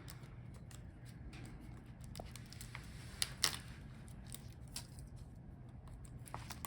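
Faint, scattered small clicks and taps as connectors are unclipped and screws removed from a laptop motherboard. The sharpest clicks come in a pair about halfway through, over a low steady hum.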